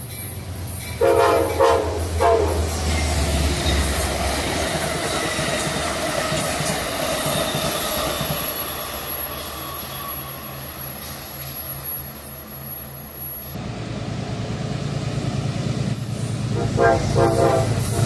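Locomotive horn sounding two short blasts about a second in, followed by the steady rumble of a passing train, with the horn blowing again near the end.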